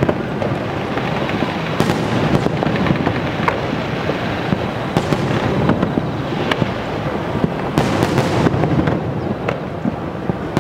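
Aerial fireworks shells bursting in quick succession: a continuous rumble of booms with many sharp cracks layered over it.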